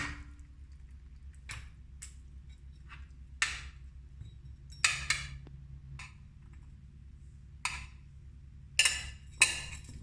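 Scattered knocks and clatters of kitchen utensils and a pan as marinated pork and potatoes are transferred for cooking, about eight separate sharp sounds, the loudest near the end, over a faint steady low hum.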